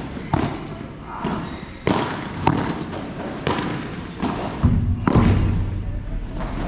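Padel rally: the ball is struck by rackets and bounces off the court and walls, about six sharp hits roughly a second apart. A low hum joins in during the second half.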